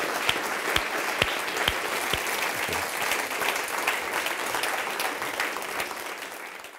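Audience applauding, many people clapping steadily; the applause fades near the end and then cuts off.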